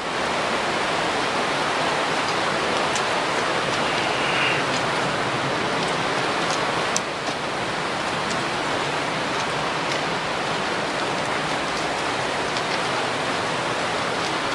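Steady rushing of a fast-flowing creek, with a few faint sharp ticks over it.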